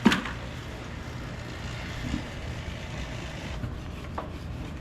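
A sharp knock right at the start, then a steady low motor rumble with a couple of faint clicks.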